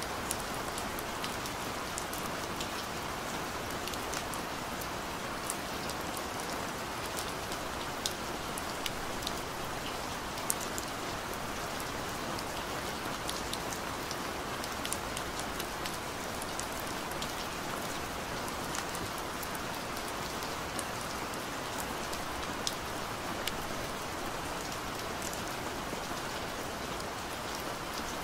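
Steady rain pattering, with many small drop ticks scattered through an even hiss.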